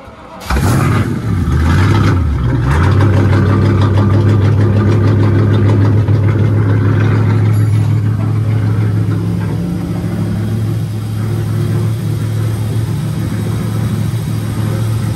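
Inboard V8 engine of a wooden cabin boat starting up, its pitch rising and falling for the first couple of seconds, then settling into a steady low idle.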